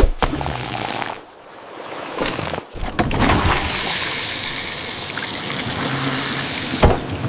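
Liquid pouring in a steady splashing stream from about three seconds in, after a sharp click at the start.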